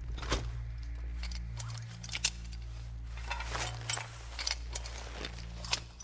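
Film soundtrack: a low, sustained musical drone with scattered sharp clicks and clinks over it, the loudest a little over two seconds in and again just before the end.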